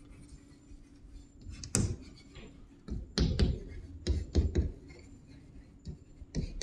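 Writing by hand: a handful of sharp taps and short scratchy strokes, spread unevenly through the few seconds.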